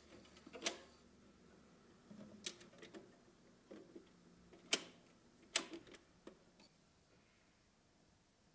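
Record player with the turntable still turning after the music has ended: about five faint, irregular clicks and knocks over several seconds.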